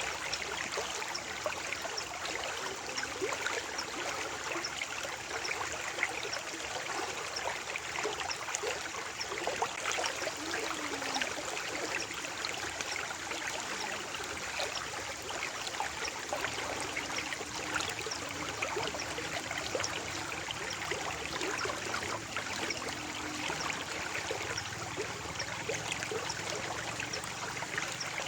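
Stream water flowing and trickling steadily over rocks, with fine bubbling and splashing.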